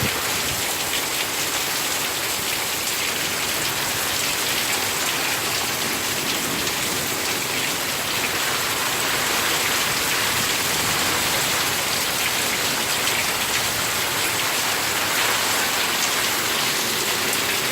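Heavy rain pouring down in a thunderstorm downpour, with steady close pattering of drops on hard surfaces.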